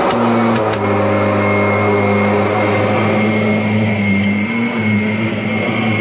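2017 Kirby Avalir upright vacuum cleaner running on carpet: a steady motor hum with a thin high whine. It has sat unused for several months and still runs.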